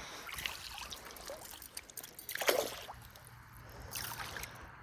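Water trickling and dripping, with a brief louder noise about two and a half seconds in.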